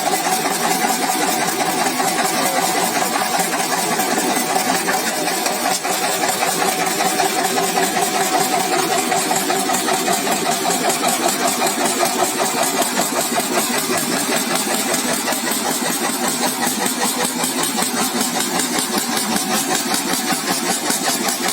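Concrete mixer's engine running steadily with a fast, even pulse, with a faint tone over it in the first half that fades out.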